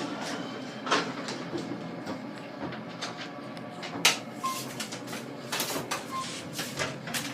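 Elevator lobby sounds: sliding elevator doors and several sharp knocks and clicks, the loudest about one and four seconds in, with two short high beeps a little after the second knock and again about six seconds in.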